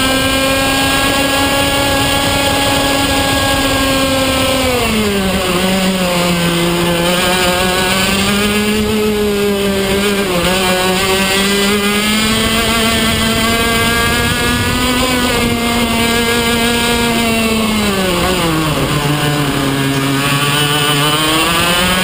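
PRD Spec Senior racing kart engine running hard, heard from on board the kart: a steady high note at first, dropping in pitch about five seconds in as the kart slows for a corner, then rising and falling through the turns, dropping lowest near the end before climbing again as it accelerates.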